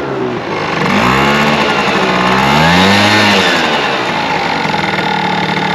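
Honda Live Dio ZX's 50cc two-stroke single revved up and down twice with the throttle, then settling back to a steady idle. No louder bearing noise comes up with the revs, and the owner judges the crankshaft bearings fine, with the rattle coming from the muffler.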